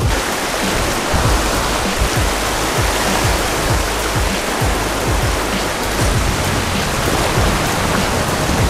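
Steady rushing noise of wind on the microphone and surf washing over a rocky shoreline, with irregular low buffeting thumps from the wind.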